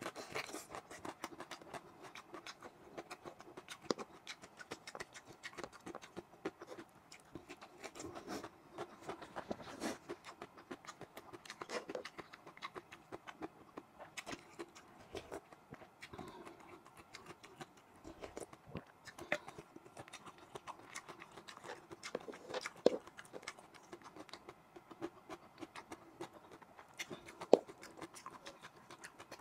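Close-miked chewing and wet lip smacking while eating boiled beef and rice, a steady run of irregular mouth clicks, with a few sharper clicks standing out.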